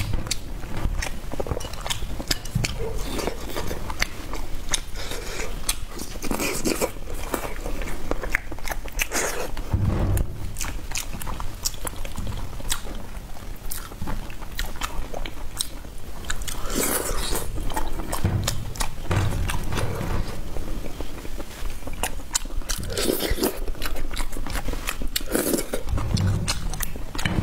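Close-miked eating: repeated biting and chewing of food with crunchy, crackling clicks.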